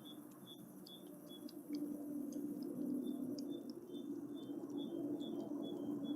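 Night insects, likely crickets, chirping in short, quickly repeated notes, with a steady low drone underneath.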